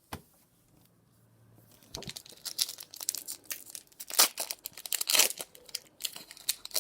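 Foil booster-pack wrapper crinkling and tearing in the hands. The crackling starts about two seconds in and runs in a dense stretch, loudest around the middle.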